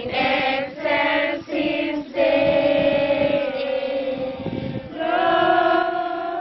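Choir singing a sacred song in several voices: a few short phrases, then one long held chord near the end as the song closes.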